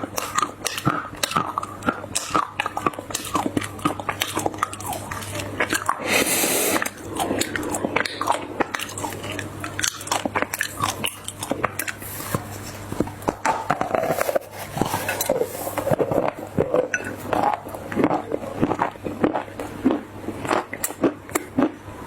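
Close-up, dense, irregular soft crunching and crackling of a big piece of dry clay being broken up, over a faint steady low hum.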